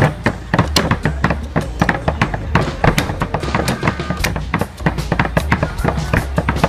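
Repeated cleaver chops on a wooden chopping block, cutting through raw meat, a quick run of sharp knocks several times a second. Music with a steady low bass plays in the background.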